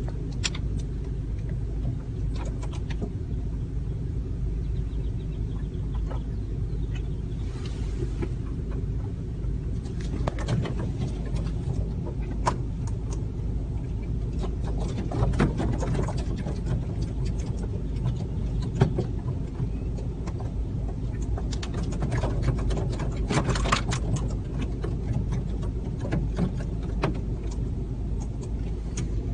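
Steady low rumble of a car, heard from inside the cabin, with scattered short, sharp sounds over it.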